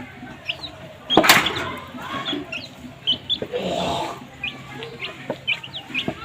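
Baby chicks peeping: many short, high chirps scattered throughout, with one sharp knock about a second in.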